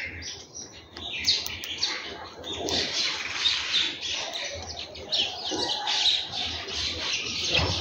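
House sparrows chirping, many short overlapping chirps in a continuous chatter.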